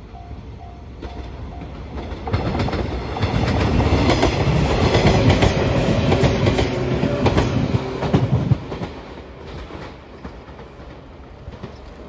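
JR 115-series electric train passing close by, its wheels clattering over the rail joints, loud from about two seconds in until about eight and a half seconds, then fading as it draws away. Over the first two seconds a level-crossing bell rings in a steady repeating ding, then stops.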